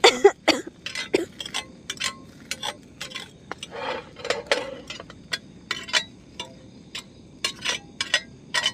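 Metal tongs clinking and scraping against a frying pan on a camping gas stove while food is turned: a string of irregular sharp clicks and clinks.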